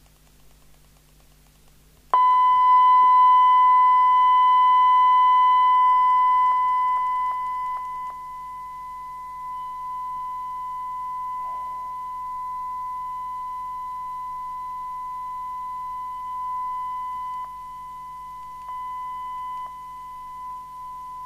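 Steady single-pitched test tone from the PNI HP55 CB radio's loudspeaker: the radio receiving the test equipment's tone-modulated signal. It starts suddenly about two seconds in, loud, then steps down in level as the volume is turned down. A few faint clicks sound under it.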